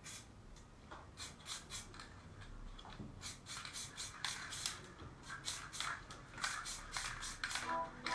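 Aerosol spray-paint can hissing in repeated short bursts, several a second in clusters, as grey paint is dabbed over a paper stencil. Near the end a few repeated musical tones come in.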